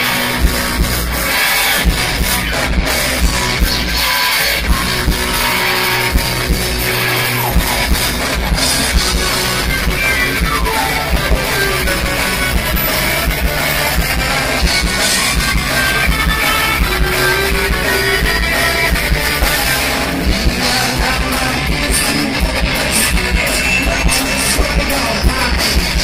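A live progressive rock band playing: electric guitars, bass and drum kit, captured through a phone's microphone with poor sound quality. About ten seconds in, a long falling glide in pitch sweeps down through the music.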